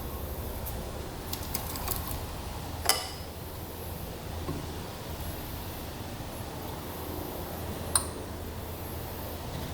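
Small metal engine parts and tools being handled on a workbench, with scattered light clicks and taps. The sharpest tap comes about three seconds in and another near eight seconds, over a steady low hum.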